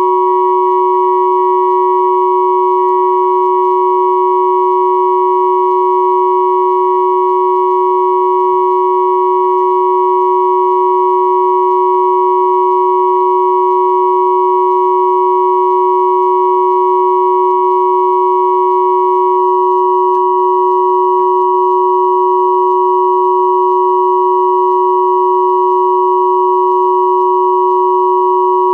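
Synthesized pure sine tones at 369, 963 and 1111 Hz sounding together as one steady, unchanging chord-like hum. Fainter, higher tones sit above it, and one of them drops out about two-thirds of the way through.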